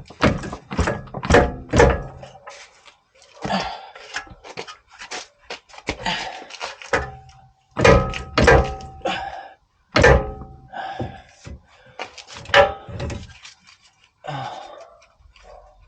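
Repeated heavy metal thunks in irregular clusters, some leaving a short metallic ring, as the worn CV axle on a Range Rover L322 is knocked and forced loose to come out.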